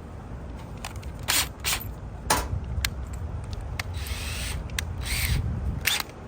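A screw being driven with a screwdriver through a bracket into a plastic car door panel: a string of irregular sharp clicks and short scraping bursts. A steady low rumble runs underneath.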